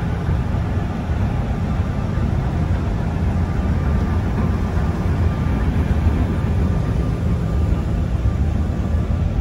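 Car ferry underway: a steady low rumble from its engines and the churning propeller wake, mixed with wind buffeting the microphone on the open stern deck.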